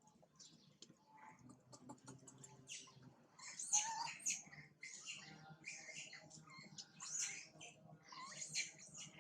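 Baby monkey making quick, high-pitched squeaks and chirps in short bursts, coming thicker and louder from about three seconds in.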